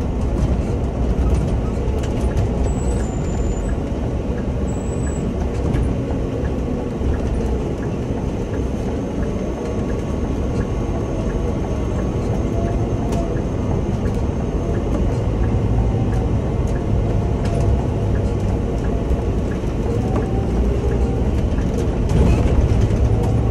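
Scania OmniLink city bus driving, heard from the driver's seat: a steady engine and road rumble that grows louder near the end.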